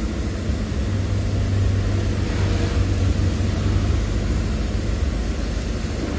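Steady low hum with an even hiss behind it, a machine-like background noise.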